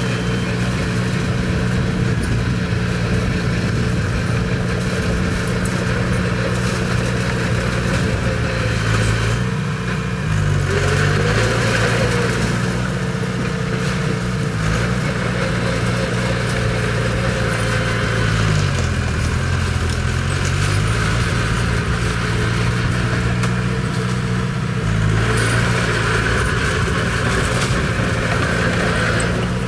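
Bulldozer's diesel engine running steadily. Its pitch sags briefly and recovers twice, about ten and about nineteen seconds in.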